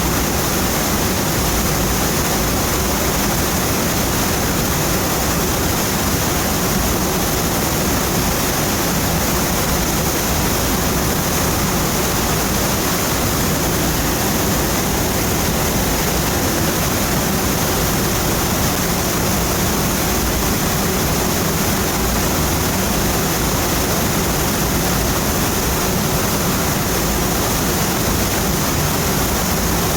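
Donut Falls waterfall: water pouring and splashing in a loud, steady, unbroken rush.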